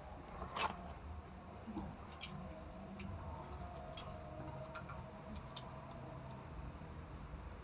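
Light metallic clicks and taps of hand tools and a feeler gauge on the rocker arms of a Mitsubishi Canter diesel engine as its valve clearances are set. One louder click comes about half a second in, and a dozen or so fainter ticks are scattered through the rest.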